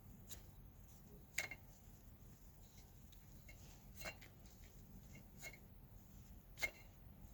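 Faint, sharp clicks at irregular intervals, about five of them, over a low steady hum: the abnormal noise from a Toyota GRJ79 Land Cruiser's clutch release bearing.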